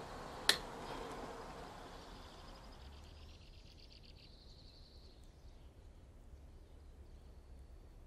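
A single sharp snap about half a second in as needle-nose pliers pull a nail out of a car tire's tread. A faint, high, rapid trill follows in the background.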